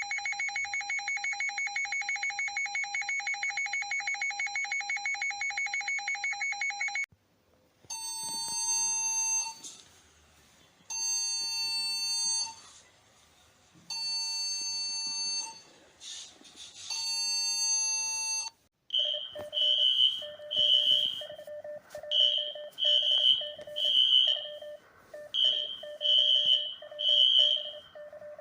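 A run of electronic emergency alert alarm tones: a fast-pulsing tone for about seven seconds, then after a short gap four long beeps about three seconds apart, then a repeating pattern of short beeps in groups of three.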